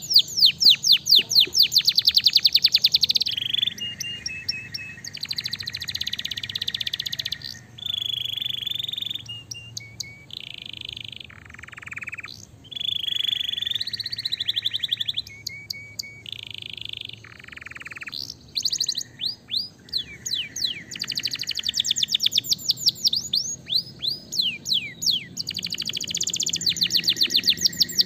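Domestic canary singing a long, unbroken song of repeated phrases: fast trills of quick downward-sweeping notes alternate with buzzy rolls and short held notes, the fast trills returning about 19 seconds in and again near the end.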